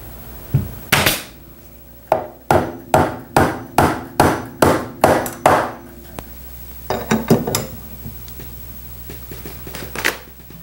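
Staple gun driving staples through a strip of webbing into a wooden chair rail: a couple of sharp snaps, then a quick run of about ten, a little under half a second apart, and a few more in a cluster later on.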